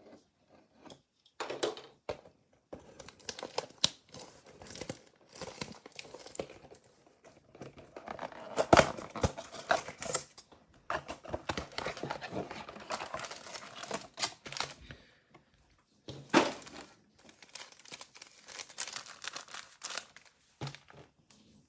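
Trading card box and foil card pack wrappers being torn open and crinkled by hand, in irregular rustles with a few sharp rips, the loudest about nine and sixteen seconds in.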